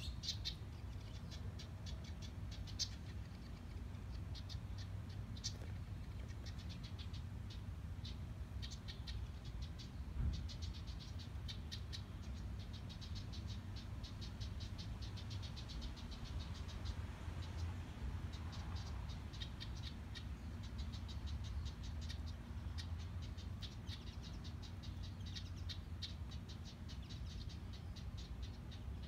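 House wren calling in long runs of rapid, dry, rattling ticks, about ten a second, broken by short pauses: the chatter a wren gives around its nest box.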